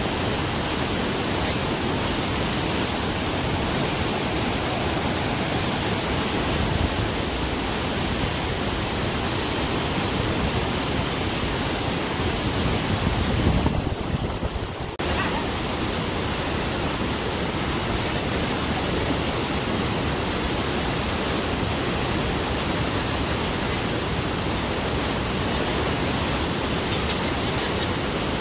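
Huka Falls: the Waikato River rushing through its narrow rock gorge as whitewater rapids, a loud, steady, dense rush of water. About halfway through, the sound briefly turns muffled for about a second.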